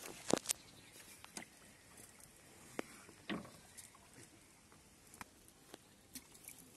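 Scattered soft rustles and sharp little clicks of a cast net being handled and picked over by hand on muddy ground, with the loudest cluster in the first second and another just past the middle.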